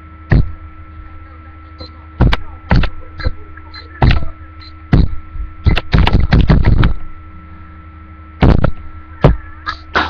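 Steady electrical hum with a series of loud, irregular thumps and knocks, bunched most thickly about six to seven seconds in.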